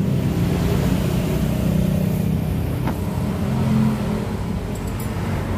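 A running engine's steady low drone, with one short click about three seconds in.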